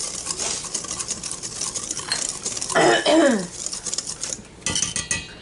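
Wire whisk beating flour and dry ingredients in a stainless steel mixing bowl: a quick, continuous scraping clatter of the wires against the metal. About three seconds in, a short vocal sound drops in pitch, and a few knocks follow near the end.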